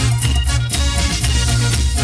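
Funk music from the DJ's sound system, with a heavy bass line and a steady drum beat.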